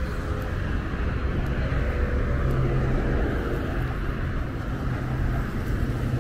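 Road traffic: steady rumble and tyre noise from vehicles on the street alongside, with an engine hum that swells in the middle.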